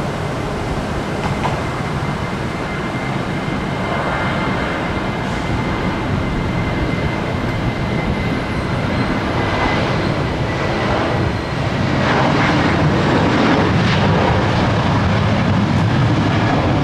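Jet airliner engines, a loud steady rush and rumble that grows louder about twelve seconds in.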